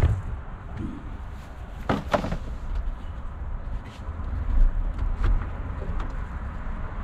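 Clunks and knocks of a car battery being lifted and set down on the metal door sill of a van, with handling noise; the sharpest knocks come about two seconds in and again around five seconds.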